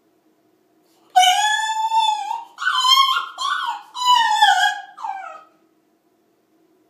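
French bulldog puppy yodelling: a run of long, high, wavering howled notes starting about a second in, ending with a falling note a little past halfway.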